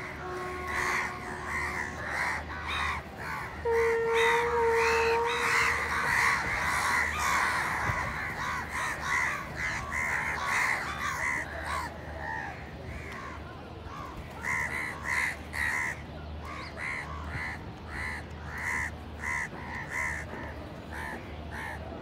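A flock of Indian house crows cawing, many calls overlapping through the first half, then fewer separate caws as the birds thin out. A steady tone sounds for about two seconds near the start, over a low steady hum.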